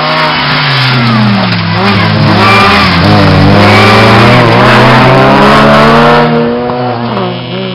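Small rally hatchbacks' four-cylinder engines at full throttle, revs repeatedly dropping and climbing again through lifts and gear changes. Loud as the cars pass close, fading near the end.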